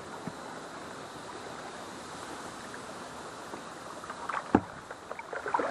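Kayak paddling on a river: a steady hiss of water and air, then from about four seconds in a handful of sharp knocks and splashes from the paddle, one much louder than the rest.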